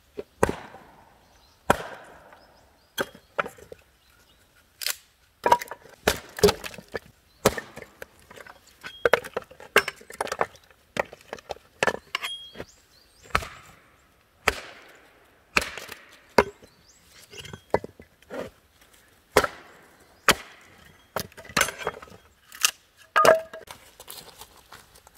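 Repeated sharp chopping strikes on wood, irregular, one or two a second, some with a brief ring after the blow.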